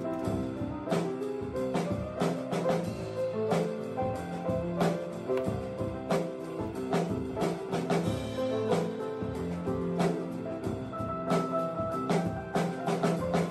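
Instrumental background music with a regular drum beat under melodic notes.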